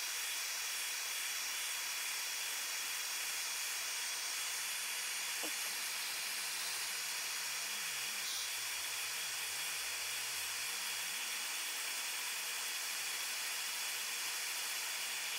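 Handheld electric heat gun blowing, a steady, even hiss of hot air, heating PVC electrical conduit to soften it.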